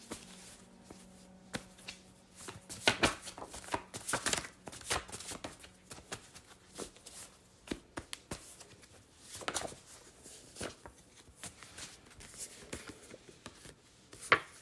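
A deck of tarot cards being shuffled and handled by hand: irregular soft slaps, flicks and rustles of card stock, busiest a few seconds in.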